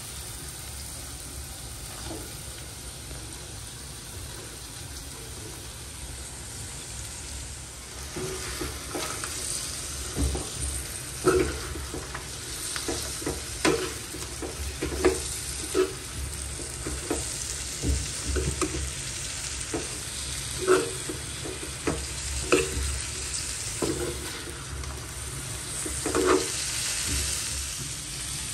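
Chopped cabbage being stirred into soaked chana dal frying in oil in a hot kadai: a steady sizzle, with a spatula scraping and knocking against the pan at irregular intervals from about eight seconds in.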